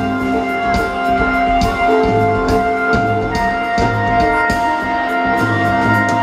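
Live rock band playing: a drum kit keeps a steady beat under electric guitars and sustained keyboard chords.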